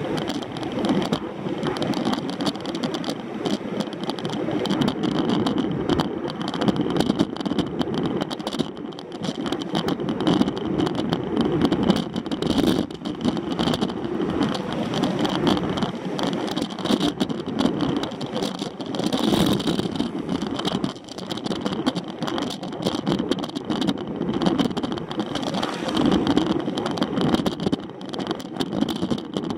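Bicycle being ridden: steady rolling road noise with frequent rattles and clicks.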